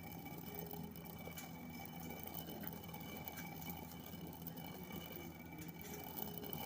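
Hand-turned stone chakki (quern) grinding: a continuous gritty rumble of the upper stone turning on the lower, with small crackles of chickpeas being cracked into dal between the stones.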